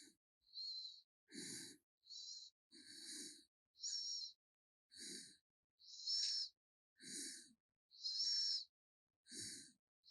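A sleeping raccoon snoring: short, rapid wheezy breaths, about one every 0.8 s. Many carry a thin, wavering high whistle, and some have a low rasp underneath.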